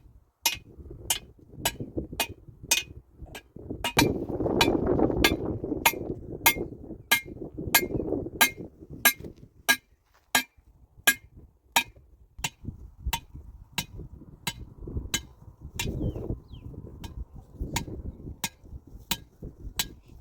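Sharp taps repeating very evenly, a little under twice a second, with stretches of rough scraping or rustling noise between them.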